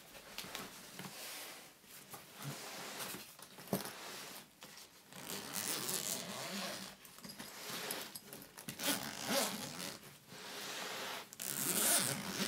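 Handling noise: a series of short rasping, rustling sounds in irregular bursts with brief pauses between them, the loudest near the end.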